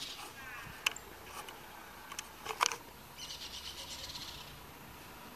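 Faint bird chirps and a rapid high trill, with a few sharp clicks.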